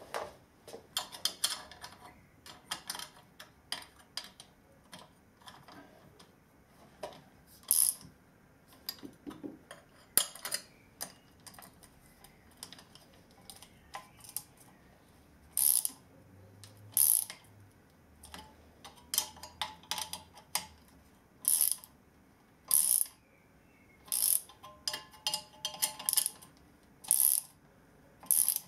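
Nuts being tightened by hand tool on all-thread rods that clamp an electric motor's casing together: sharp metallic ratchet-like clicks, in short runs at first and then as single clicks about a second apart.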